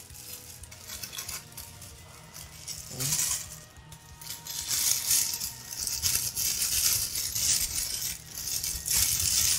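Plastic bag wrapping rustling and crinkling as hands pull it off a resin bust packed in a foam tray. It grows louder about three seconds in and stays busy until the end.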